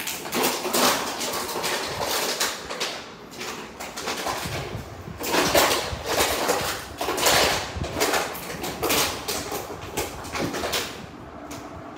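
Crumpled plastic water bottle being chewed and pushed around a tile floor by a beagle. It makes irregular bursts of crackling, crunching plastic and scraping on the tiles.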